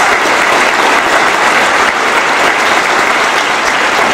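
A large audience applauding, many hands clapping in a dense, steady ovation.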